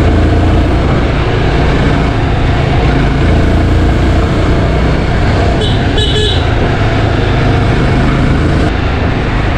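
Yezdi Scrambler's 334 cc single-cylinder engine running steadily while the motorcycle rides along, heard with a dense rush of road and wind noise. A brief high-pitched sound cuts in about six seconds in.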